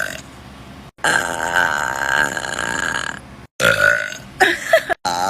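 A person burping loudly several times: one long, drawn-out, wavering burp of about two seconds, then a few shorter burps in quick succession.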